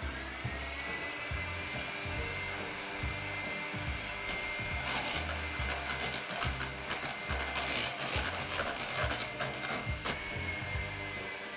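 Electric hand mixer whipping egg whites toward stiff peaks in a plastic bowl: a steady motor whine that rises in pitch as it comes up to speed at the start and drops a little near the end, with rattling clicks through the middle.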